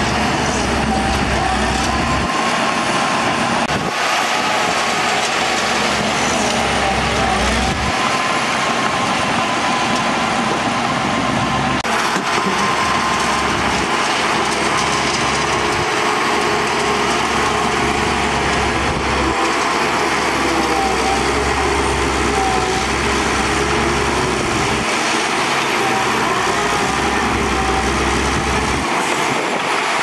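Shantui DH17C2 crawler bulldozer working as it pushes a pile of dirt with its blade: engine and tracks running steadily, with a high whine that wavers in pitch and a deep rumble that comes and goes every few seconds.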